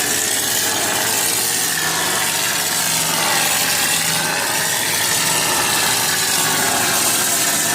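Turbosol mortar sprayer running and spraying plaster mortar: a loud, steady hiss with a faint low hum under it.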